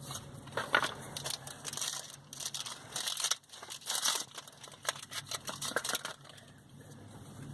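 Foil Yu-Gi-Oh! booster pack wrappers crinkling and tearing as packs are opened and handled. There are many irregular crackles for about six seconds, then the sound eases off near the end.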